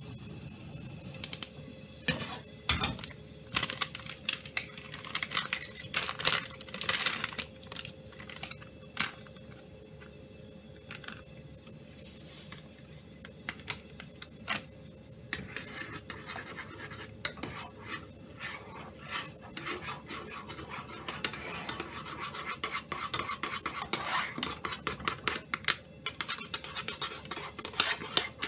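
Kitchen utensil stirring and scraping in a saucepan as instant mashed potato flakes are mixed in. Sharp clicks and clinks are scattered through the first half, and the scraping gets denser over the last several seconds.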